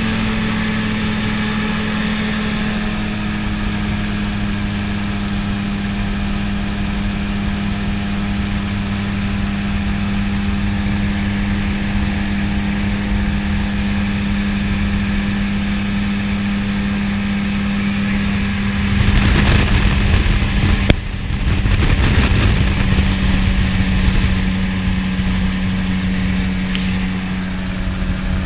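Gyroplane engine and propeller droning at a steady pitch in flight, heard from the cockpit. A rush of wind noise swells about two-thirds of the way through, with a sharp click in the middle of it.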